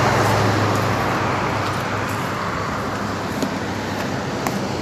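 Road traffic: a motor vehicle passing on the road, its engine hum and tyre noise slowly fading away.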